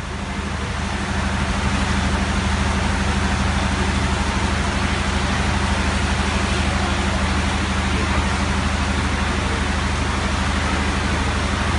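Heavy rain falling on a metal market roof: a dense, steady hiss that fades in over the first second, over a steady low hum.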